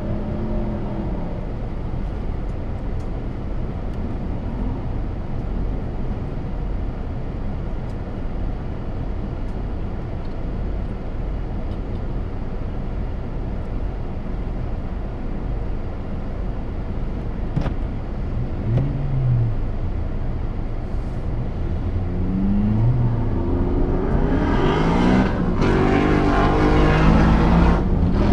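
Car engine idling with a steady low rumble, heard from inside the car's cabin. Near the end the revs rise several times and the engine sound grows louder.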